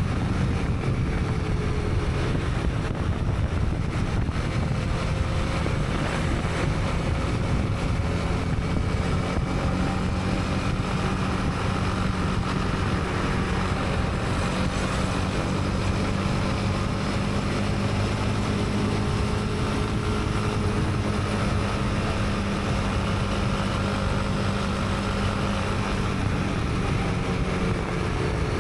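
Honda CB300R's single-cylinder engine running at a steady cruise, its pitch drifting slowly, with wind noise on the helmet-mounted microphone.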